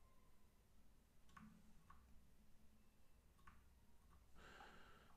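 Near silence: room tone with about four faint, short clicks from working a computer's mouse or keys.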